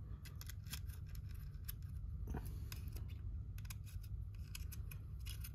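Faint, irregular small metallic clicks and ticks of a hex key working in the Picatinny rail's screws, taking the slack out of them, over a low steady room hum.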